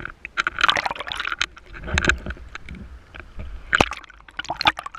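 Sea water splashing and lapping against a camera held at the waterline, in irregular sharp splashes. Near the end the camera goes under the surface.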